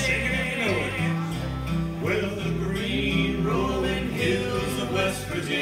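A small acoustic string band playing a slow country-folk song live, with acoustic guitar and mandolin accompanying singing.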